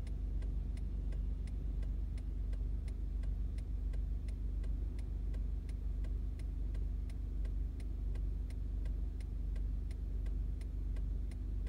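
Car interior driving noise at highway speed: a steady low road and engine rumble with a faint hum, and an even ticking, nearly three ticks a second, running throughout.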